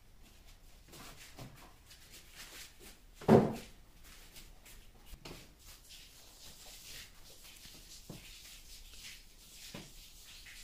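Faint scratchy strokes of a paintbrush on a gypsum-board panel, with a few light taps and one loud knock about three seconds in.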